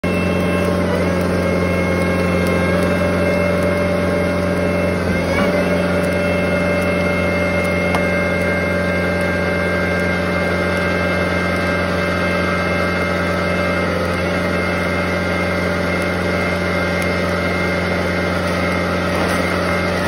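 John Deere 333G tracked skid steer's diesel engine running steadily at working throttle while it drives a Fecon Stumpex screw-type stump grinder into a stump, with steady high-pitched tones over the engine. The tones dip briefly about a second in and again around five seconds in as the grinder takes load.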